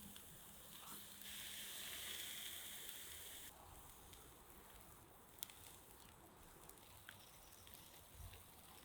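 Fish sizzling faintly on a charcoal grill; the hiss drops away about three and a half seconds in, leaving a few small crackles.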